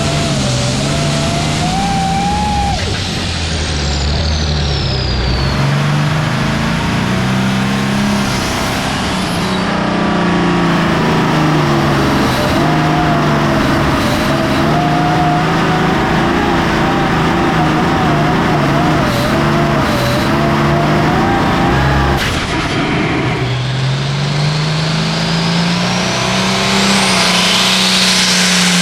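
A 466 Hot Farm class pulling tractor's turbocharged diesel engine running hard under load, its pitch wavering, with a high whine riding over it. About twenty-two seconds in there is a brief sharp crack, and after it the revs climb again.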